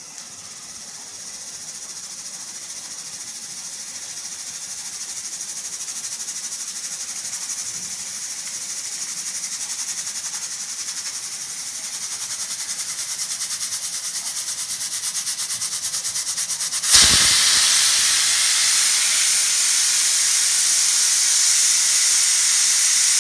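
Pressure cooker venting steam: a high hiss that slowly builds, with a rapid flutter as pressure nears release. About 17 seconds in, it bursts into the loud, steady full whistle of escaping steam, which holds for about six seconds.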